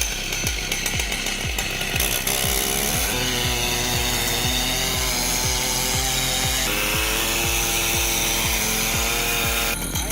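A chainsaw engine running at high revs, its pitch shifting a few times and cutting off near the end, over background music with a steady low beat.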